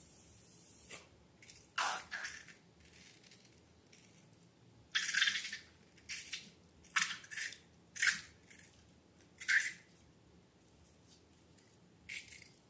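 Wet slime being handled, making short sticky squelches at irregular intervals, about half a dozen of them.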